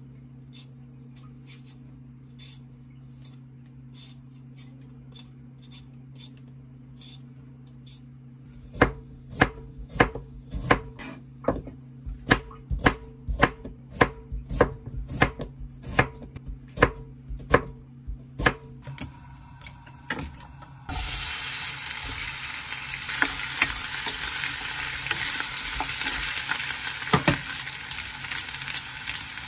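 A vegetable peeler scrapes faintly over a potato. About nine seconds in, a kitchen knife starts chopping the potato on a wooden cutting board, about two cuts a second, for around ten seconds. From about twenty seconds in, sliced potato and onion sizzle steadily in a hot frying pan.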